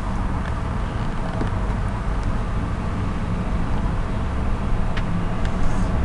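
Steady background rumble and hiss, with a few faint clicks near the end.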